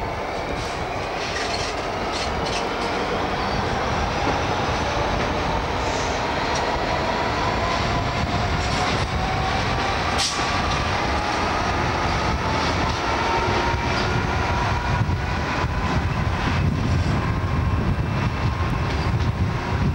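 Diesel-hauled train heard from an open window of a coach behind the locomotive: a steady roar of engine and wheels on rail, with a whine that slowly rises in pitch as the train gathers speed. Occasional clicks from the wheels, a sharp one about halfway through.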